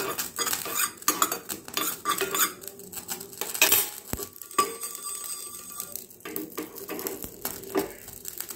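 Steel spoon scraping and clinking against a small pan while stirring cumin seeds as they dry-roast: a busy run of short scrapes and taps, loudest a little before four seconds in.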